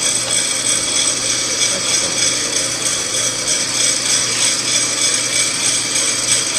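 Home-built coffee bean roaster running: a steady machine whir from its motors and fans, with a constant low hum and a high whine.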